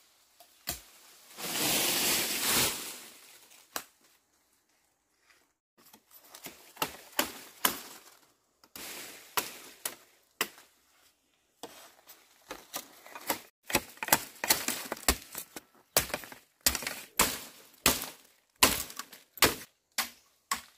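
Dry leaves, bamboo and undergrowth rustling and crackling as someone pushes through and works in the brush, with a long rustle early on and then many sharp cracks and knocks of sticks and bamboo, coming thicker and louder in the second half, about one or two a second.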